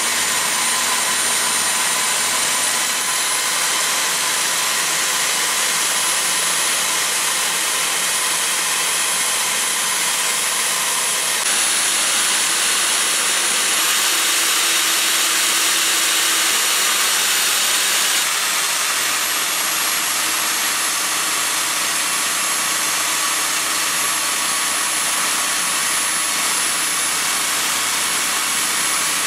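Electric drill motor driving an ER20 collet milling spindle, running with a steady high whine. Its speed is set through an AC variable voltage regulator: the pitch steps up about three seconds in, climbs again and gets louder around halfway, then drops back a few seconds later.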